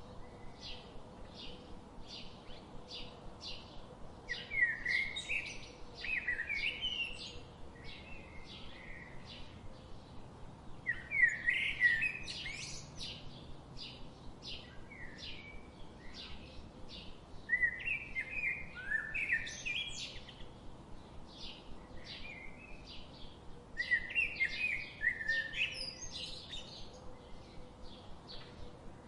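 Songbirds singing: a steady run of short, high chirps, about two a second, broken every six seconds or so by a louder warbling phrase.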